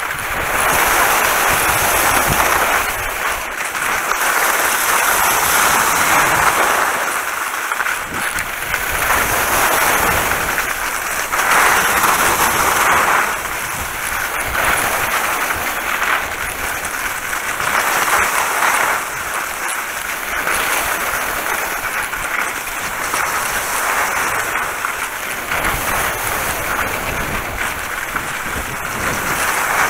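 Skis hissing and scraping over wet snow during a downhill run, swelling and easing every few seconds.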